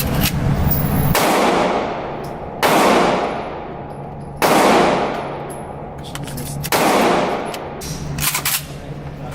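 Four gunshots about one and a half to two seconds apart, each with a long echoing tail, followed by a few faint clicks.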